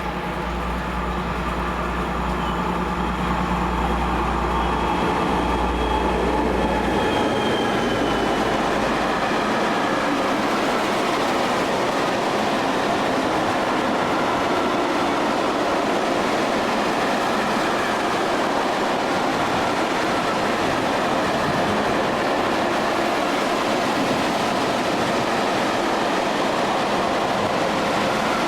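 An M62 diesel locomotive's two-stroke V12 engine drones low as it passes, fading out about nine seconds in. A train of coal wagons follows, rolling past with a steady rumble of wheels on rail.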